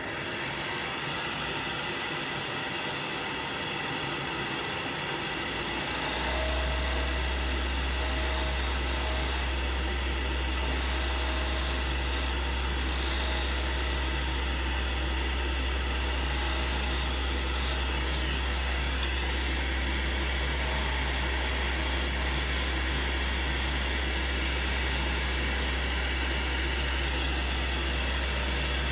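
Wood lathe running steadily with a small skew chisel cutting fillets into a spinning mahogany tool-handle blank. A deeper hum sets in about six seconds in and holds.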